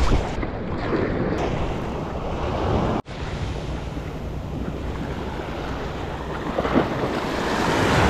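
Sea waves washing against the shore, with wind buffeting the microphone. The sound cuts out for an instant about three seconds in.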